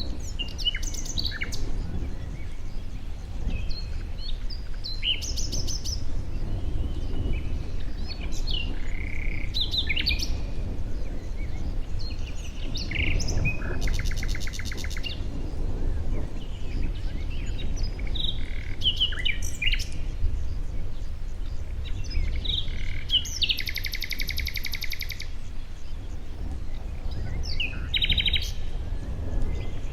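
Several songbirds chirping and singing, with fast trills of rapidly repeated notes about halfway through and again a little after that, over a steady low background rumble.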